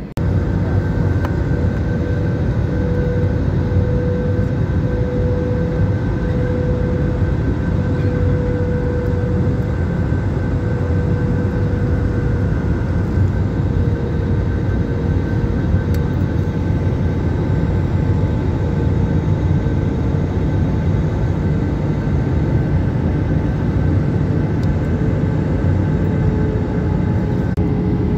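Jet airliner engines heard inside the cabin while climbing after takeoff: a steady, loud roar with a steady whine that settles slightly lower in pitch about halfway through.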